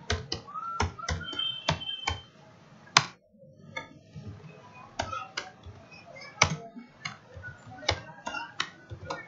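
Typing on a computer keyboard: about fifteen separate key clicks at an uneven pace, with a short pause a little past three seconds in.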